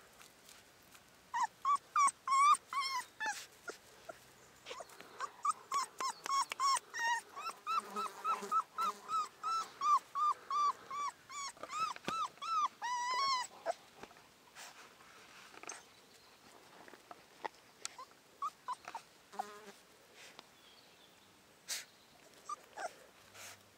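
Cane Corso puppy, about a month old, whining in a rapid series of short, high cries, each rising and falling in pitch, for about twelve seconds. A few scattered whimpers follow near the end.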